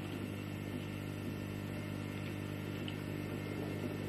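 A steady low hum with several even overtones, unchanging throughout, with a couple of very faint ticks in the middle.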